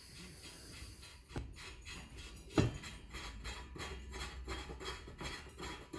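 Metal parts of a pipe stand being handled: nut and base plate rubbing and scraping, with light clicks and two knocks, the louder about two and a half seconds in.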